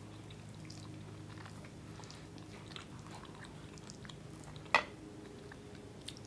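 Close-up chewing, with small wet mouth clicks, over the steady low hum of a lawn mower's motor in the background. About five seconds in comes a single sharp click.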